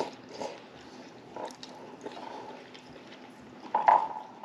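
Quiet eating sounds at a table: faint chewing and small clicks of utensils against bowls, with a brief louder sound near the end.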